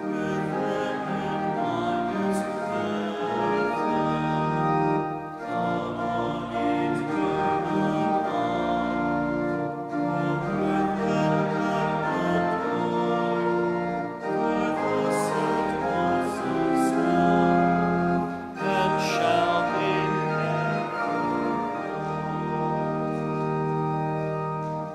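Church organ accompanying a congregation singing a hymn, in sustained phrases that break every four to five seconds; the music stops at the very end.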